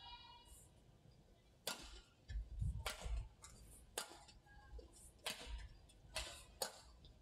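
Badminton rally: sharp cracks of rackets striking a shuttlecock about once a second, six in all, with a few low thuds of players' footwork on the court.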